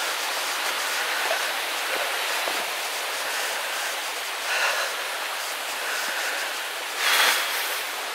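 Steady rushing of a stream. It swells briefly twice, once about halfway through and again near the end.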